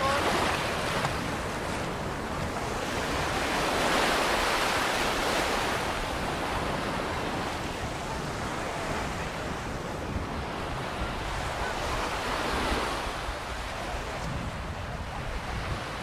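Ocean surf washing onto a sandy beach, the noise of the wash swelling and easing over several seconds, with wind rumbling on the microphone.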